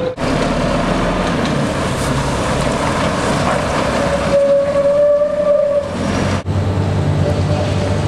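Heavy log lorry's diesel engine running as the loaded truck pulls off the weighbridge, with a high steady whine for about a second and a half midway.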